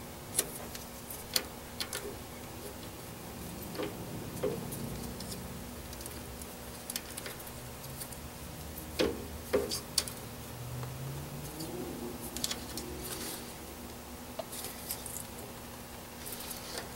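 Small clicks, taps and paper rustles of hands working a clear piece wrapped in a paper strip into a metal lathe's three-jaw chuck. A few sharp taps are scattered through, with a quick cluster about nine to ten seconds in, over a faint steady hum.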